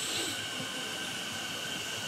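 Sanyo 6000 series electric train pulling slowly into the platform and braking, with a steady high-pitched squeal over the rumble of the cars.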